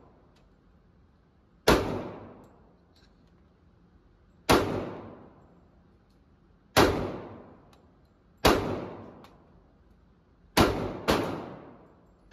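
Glock pistol fired in slow, deliberate single shots, six in all, the last two about half a second apart, with another shot right at the end. Each report rings on for about a second off the walls of an indoor range.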